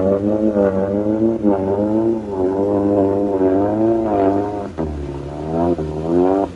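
Off-road 4x4's engine revving hard, its pitch rising and falling repeatedly, dropping lower about two-thirds of the way through and then climbing again, with a few short sharp knocks.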